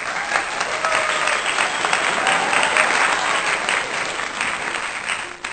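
Crowd applauding, fading out near the end.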